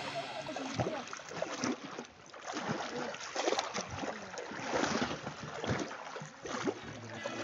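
Water splashing and lapping in irregular strokes as people swim in a river pool.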